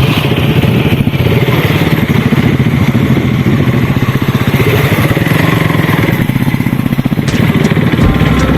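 An engine running steadily and loudly, with a rapid, even pulse.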